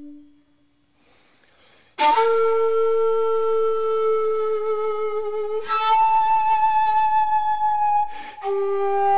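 Shakuhachi playing slow, long held notes. A note dies away at the start, and after a short silence a strong, breathy attack opens a long note. Fresh breaths renew it midway and near the end, where it moves to a slightly lower note.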